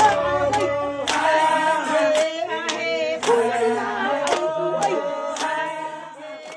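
A group of voices singing, with hand claps keeping time at about two a second.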